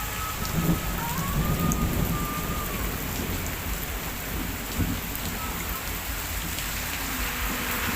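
Heavy rain pouring steadily onto surfaces. A low rumble runs through the first three seconds, and a thin, wavering high tone fades out about three seconds in.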